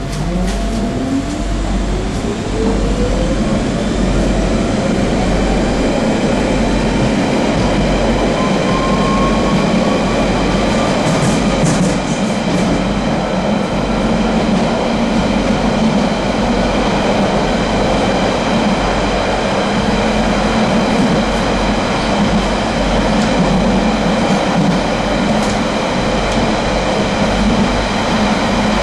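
London Underground 1992 stock train accelerating: its traction drive gives a whine that rises steadily in pitch over the first ten seconds or so, then levels off, over steady high-pitched tones and the rumble and clatter of the wheels on the rails.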